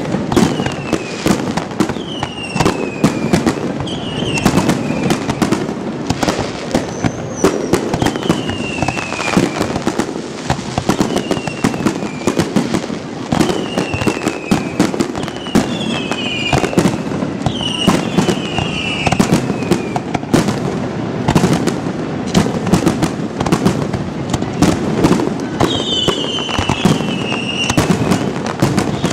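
Aerial firework shells bursting in quick succession, a dense run of bangs and crackles. High whistles that fall in pitch over about a second each cut through the bangs again and again.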